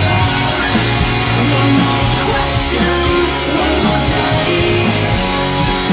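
A rock band playing loud live: electric guitar and drums with cymbal hits, over sustained low notes that change pitch every second or so.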